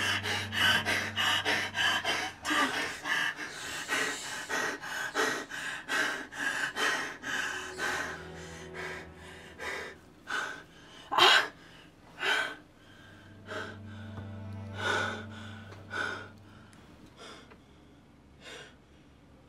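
A young woman crying, with gasping, sobbing breaths in quick succession at first that grow fewer and fainter over the second half. A low steady hum sits underneath.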